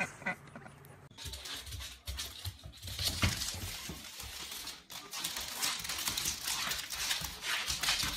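A dog's claws scrabbling and clattering on a wooden floor as it dashes about: a busy run of clicks and scuffs that starts about a second in.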